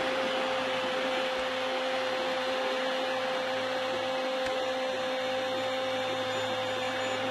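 Football TV commentator's long, sustained "goool" goal cry held on one steady pitch, over the noise of a cheering stadium crowd.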